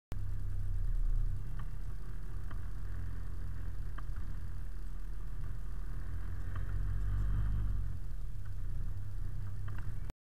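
Delivery truck's engine running at low speed, a steady low rumble heard inside the cab, with a few faint scattered clicks.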